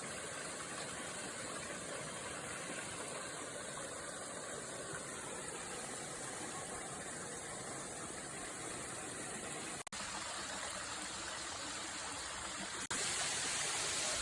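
Steady rush of flowing stream water near a waterfall. It drops out for a moment about ten seconds in and comes back slightly louder near the end.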